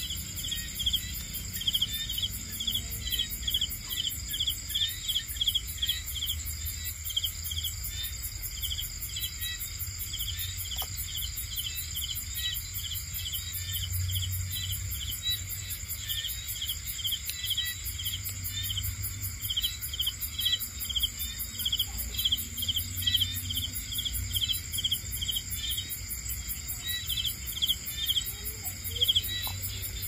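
Night chorus of crickets and other insects: steady high-pitched trilling, with repeated runs of rapid chirps coming in groups every couple of seconds, over a low rumble.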